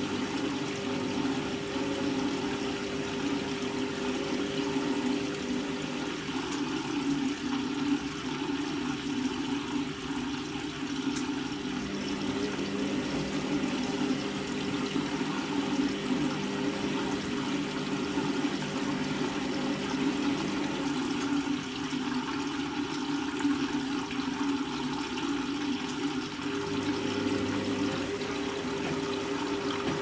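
Front-loading washing machine in its wash cycle: wet laundry sloshing and tumbling in the turning drum over a steady motor hum, the hum's pattern shifting every several seconds.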